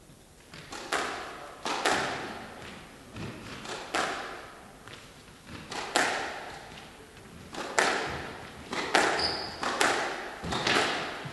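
Squash rally: the ball is struck by rackets and smacks off the walls roughly once a second, each hit echoing in the large hall. A brief high squeak comes about nine seconds in.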